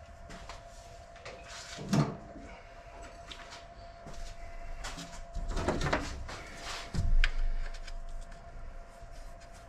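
Clicks and clunks of the throttle cable being worked off the throttle body linkage of a Toyota MR2's 4A-GE engine, hand work on metal parts with a few sharper knocks, the loudest about seven seconds in.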